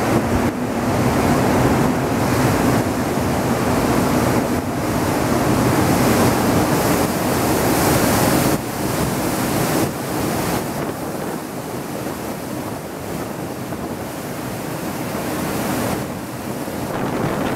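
A ship's wake churning and rushing astern, with wind buffeting the microphone. It is louder in the first half, and a low steady hum runs under it until about halfway through.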